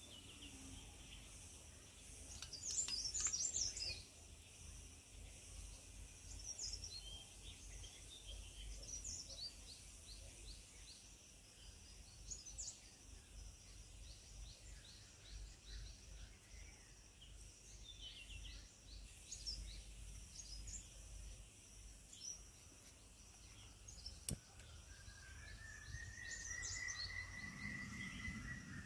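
Wild birds chirping and calling softly over a low rumble. There is a burst of calls a few seconds in, a fast run of short repeated notes in the middle, and a long whistled note that rises and then holds near the end. A single sharp click comes shortly before that note.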